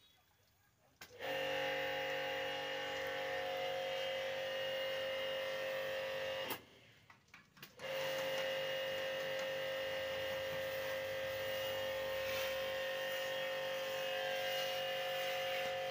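Pressure washer running with a steady, many-toned hum. It starts about a second in, stops for a little over a second midway, then starts again and keeps running.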